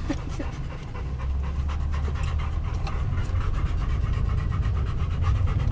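Golden retriever panting rapidly and steadily, over a constant low rumble.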